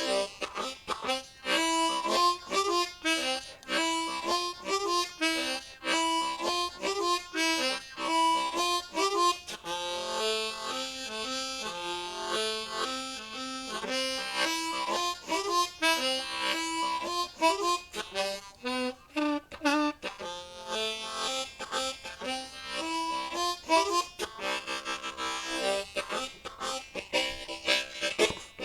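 Unaccompanied blues harmonica, a Low F Hohner Marine Band Crossover played in second position, playing a chordal shuffle of short rhythmic chord stabs. Around the middle it changes to a run of longer held notes.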